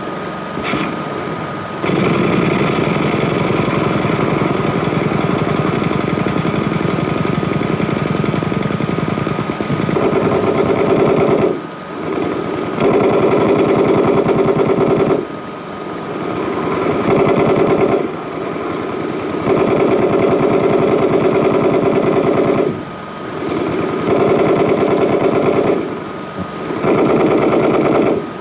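Fast, continuous mechanical rattle over a steady high hum. It grows louder in several stretches of a few seconds each, with brief drops between them.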